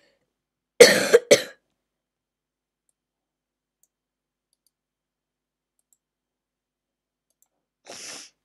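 A person coughing twice in quick succession about a second in.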